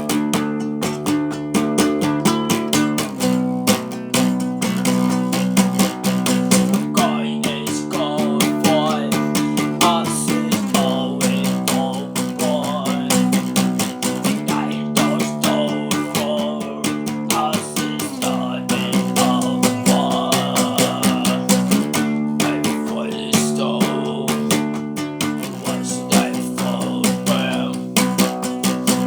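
Guitar music: steadily strummed chords that change every three to four seconds, with a wavering melody line above them in places.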